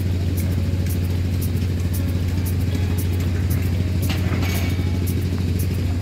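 An engine of construction machinery running at a steady speed, a constant low drone, with light high ticks repeating about three times a second and a brief rasp about four seconds in.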